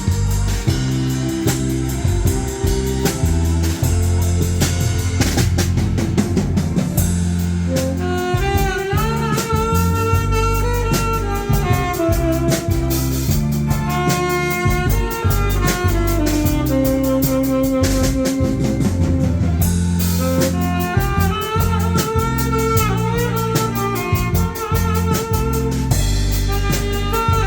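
Music: a Korean popular song played over a drum-kit and bass backing beat, with a wavering lead melody line coming in about eight seconds in.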